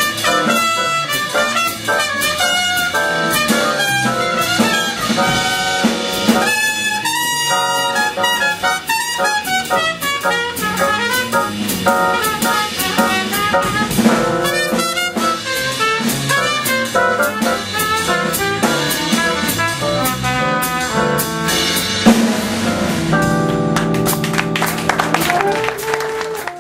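Jazz ensemble playing, with trumpets and other brass over a drum kit, settling into a long held chord near the end before cutting off.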